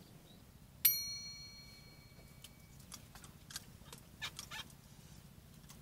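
A single sharp clink about a second in, ringing with a clear metallic tone that dies away over about a second and a half, followed by a few faint short animal calls.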